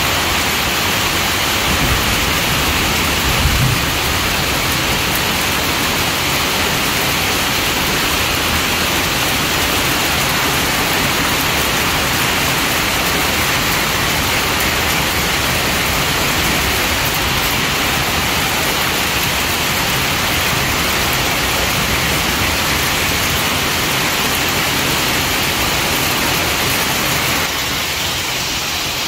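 Heavy rain mixed with small hail pouring down: a loud, steady hiss, with a couple of low thumps about two to four seconds in and a slight drop in level near the end.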